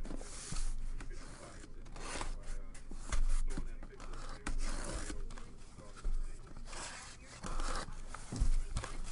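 Cardboard shipping case being handled and its packing tape slit with a blade: scraping, rubbing and tearing of tape and cardboard, with a few knocks of the box against the table.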